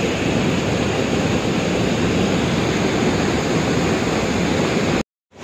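Panimur waterfall on the Kopili River, its steps of falling water rushing with a steady, dense roar heard at close range from a boat below the falls. The sound cuts off abruptly near the end.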